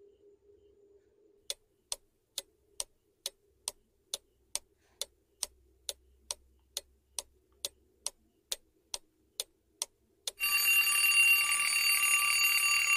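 Countdown-timer sound effect: a clock ticking about twice a second, then an alarm clock bell ringing loudly about ten seconds in, marking time up.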